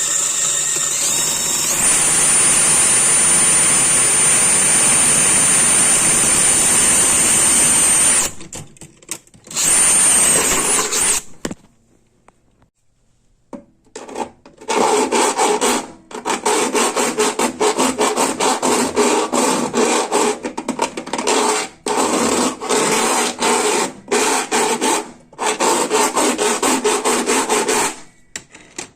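Power drill running with a high whine for about eight seconds and then briefly again, cutting a hole through the sheet-steel tool cart. After a pause comes a long run of rapid rasping strokes in several spells, as the hole's edge is filed.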